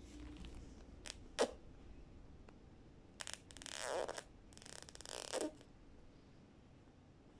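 A baby blowing raspberries: three short spluttering bursts of lip noise from her pursed lips a little past halfway. A single sharp click comes about a second and a half in.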